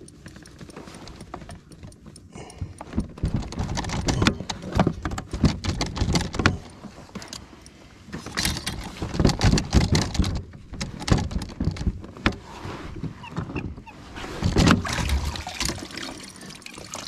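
Soft-plastic bait packets rustling and crinkling, with small clicks and knocks of tackle being handled on a kayak deck, in irregular bursts.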